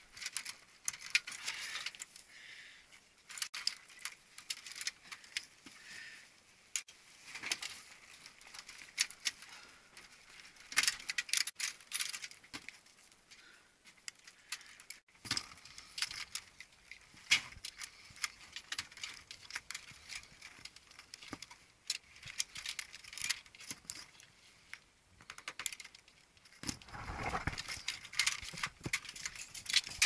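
Hands working wiring inside a heat pump's sheet-metal control box: scattered small clicks, rattles and rustles of wire, spade connectors and metal as terminals are pushed on. Near the end comes a louder rubbing noise about two seconds long.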